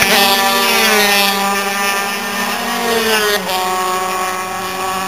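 Superbike racing motorcycle at high revs. Its engine note falls as it passes close by, then holds as the bike pulls away, with a sudden drop in pitch about three and a half seconds in, like an upshift, after which the note climbs again.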